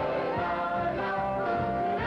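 An ensemble of voices singing a show tune with band accompaniment.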